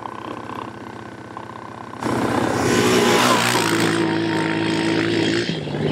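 Honda ATV engine running low at first, then jumping much louder about two seconds in as it revs up and pulls away. It then holds a steady pitch, with a rushing hiss over it.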